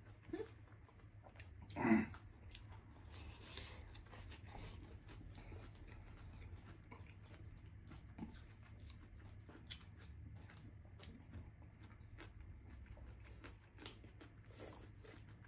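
Quiet close-up eating sounds: chewing and soft crunching of a shredded carrot salad, and small clicks of fingers working rice and curry on the plates, over a low steady hum. A short voice sound about two seconds in is the loudest moment.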